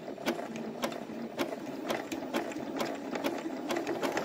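Domestic sewing machine running steadily, stitching a one-step buttonhole with its automatic buttonhole foot, with sharp clicks about twice a second over the steady whir of the needle.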